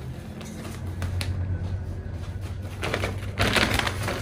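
Stiff sego gele headtie fabric rustling and crinkling as it is folded into pleats by hand, with scattered crisp clicks and a louder rustle about three seconds in.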